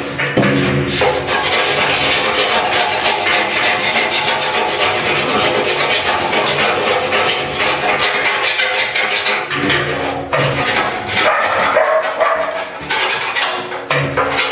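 Background music playing continuously.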